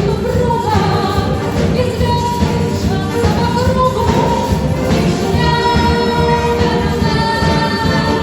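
A song with a sung vocal line over a full instrumental accompaniment with a steady beat.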